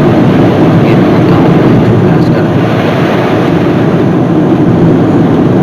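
Steady, loud rumble of a car being driven along a snowy, icy highway, heard from inside the cabin: tyre, engine and wind noise.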